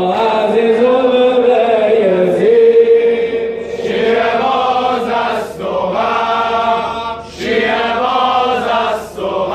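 Men's voices chanting a Muharram mourning lament in unison, holding long notes in phrases that break every couple of seconds.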